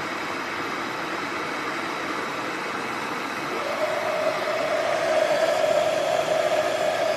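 Electric kettle heating water: a steady rushing noise, joined about three and a half seconds in by a steady mid-pitched hum that grows slightly louder as the water nears the boil.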